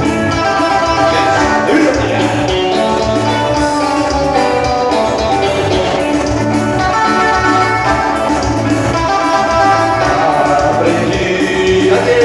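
Live band playing a sertanejo song's instrumental introduction, with a bass beat repeating steadily about once a second.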